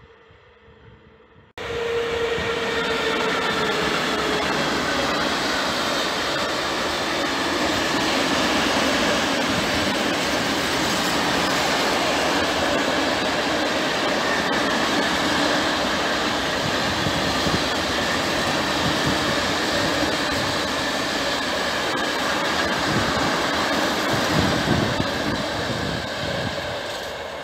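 Long freight train of open-top wagons rolling past close by: a steady, loud rumble and rush of steel wheels on rail, with faint high squealing tones over it. It starts abruptly about a second and a half in, after a brief quiet stretch.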